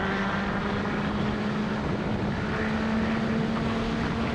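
Motorcycle engine running steadily at cruising speed, its note rising a little about halfway through, under a steady rush of wind and road noise.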